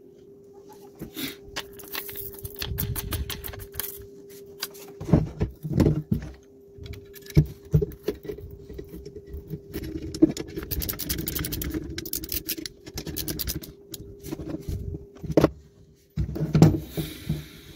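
Workshop handling noise: irregular knocks, clinks and scrapes of tools and metal parts being handled, over a faint steady hum.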